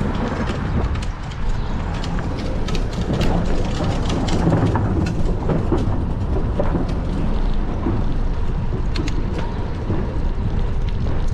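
Wind rumbling on a bicycle-mounted camera's microphone while riding, with scattered rattles and clicks from the bike rolling over cracked asphalt.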